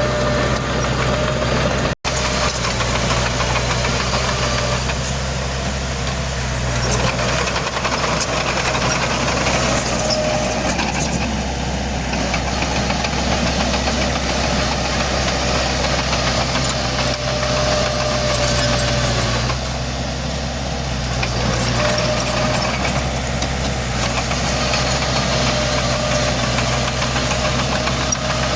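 Heavy diesel engine running steadily with a low, even drone; the sound cuts out for an instant about two seconds in.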